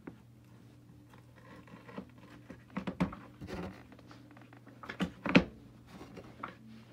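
Irregular plastic clicks, knocks and rattles as the base and brush roll of a Eureka Victory upright vacuum are handled and worked on, with the loudest knock about five seconds in. A steady low hum runs underneath.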